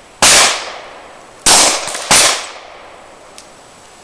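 Three pistol shots from a Glock 22 .40 S&W, the first just after the start, the next two about 1.3 s and then 0.6 s apart, each trailing off in a short echo.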